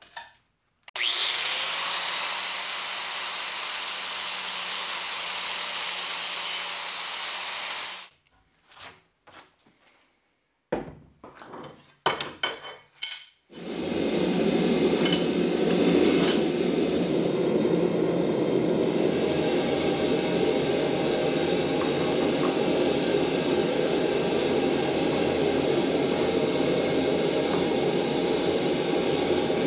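An electric power tool spins up with a rising whine and runs for about seven seconds, then cuts off. A few metal clanks follow, and then a gas forge's burners roar steadily for the rest of the time.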